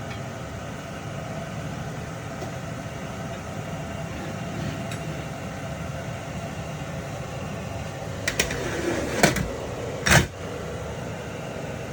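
Steady mechanical hum of a kitchen, with a few sharp clattering knocks about eight to ten seconds in, the last one the loudest.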